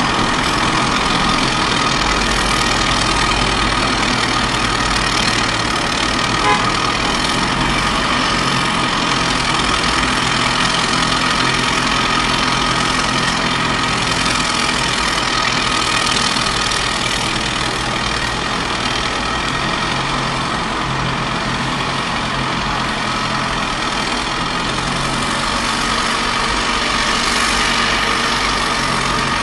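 Promex A550 wheeled excavator's diesel engine running steadily as it digs, with a small click about six and a half seconds in.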